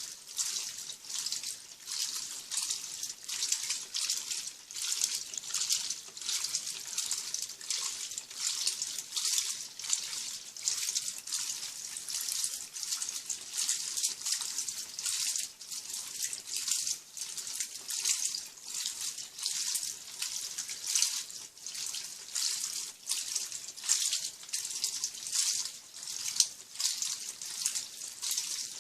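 Top-loading 15 kg washing machine agitating a load of jeans in soapy water: water sloshing and swishing in quick, regular surges as the agitator works back and forth.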